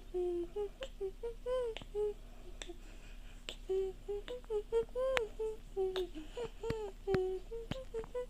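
A rapid string of short, pitched, voice-like hums or babbles, some bending up or down in pitch, with sharp clicks scattered between them.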